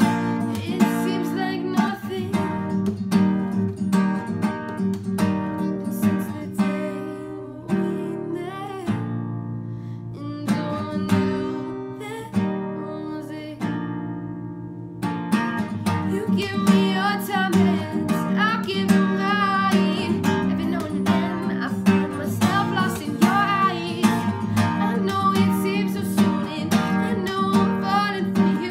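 A woman singing a slow love song to a strummed acoustic guitar. Her voice drops out for a few seconds around the middle while the guitar carries on.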